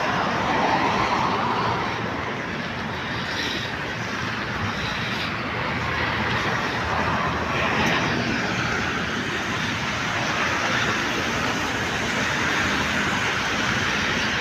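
Steady hiss of heavy rain, with traffic on a wet road swishing past and swelling briefly about a second in and again about eight seconds in.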